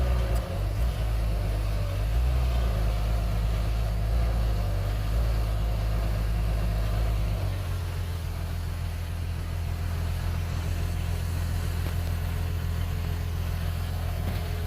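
Bulldozer's diesel engine running unevenly as it works, then settling to a steady, even note about halfway through, as at idle.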